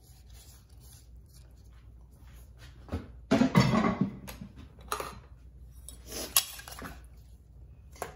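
A metal spoon scraping pounded shallot, garlic and chili out of a granite mortar and clinking against a stainless-steel mixing bowl, with a louder burst of handling noise about three seconds in.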